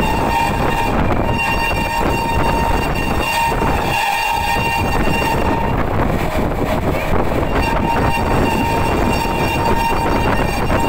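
Express train running through at high speed, the steady loud rush of its wheels and coaches throughout. Its locomotive's shrill horn is held for about three seconds, then sounds again from about seven and a half seconds in.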